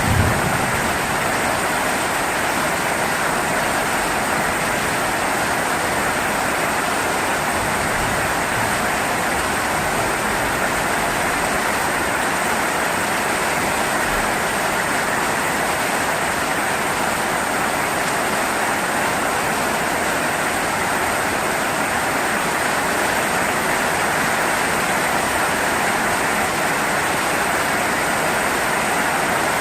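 Steady rain falling, a continuous even hiss with no change in strength.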